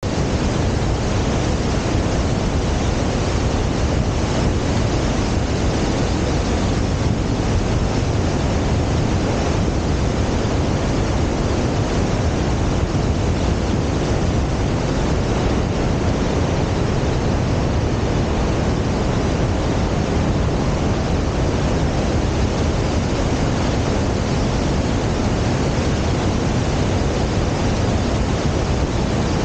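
Kicking Horse River rushing through the rocky gorge at the Natural Bridge: a loud, steady rush of white water with no breaks.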